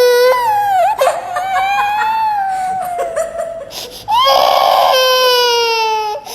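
Baby crying in long, high-pitched wails, each held for two seconds or more and slowly falling in pitch, with short breaks between them and a brief cry near the end.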